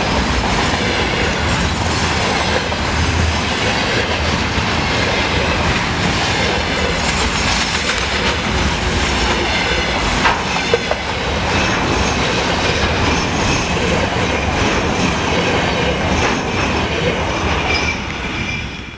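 Freight train of container wagons, hauled by a VL11M electric locomotive, rolling past at speed: a steady rumble with the clickety-clack of wheels over rail joints and a few sharp clicks about halfway through. The sound fades just before the end.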